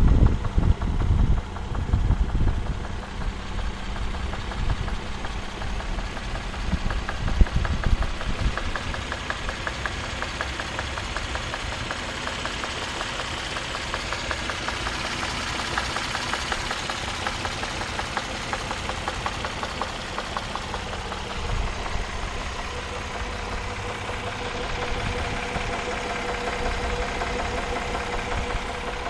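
Suzuki H27A 2.7-litre V6 engine running at a steady idle with a rapid, regular knock from inside the engine. Heavy low rumbles come near the start and about seven seconds in.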